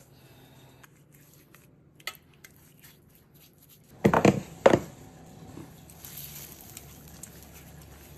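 Kitchen handling sounds around a metal roasting pan: three sharp knocks close together about four seconds in, then faint rustling and scraping.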